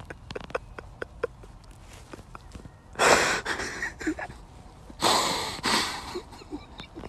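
A cow blowing air hard through its nose twice, each blast about a second long and two seconds apart, after a few seconds of faint light ticking.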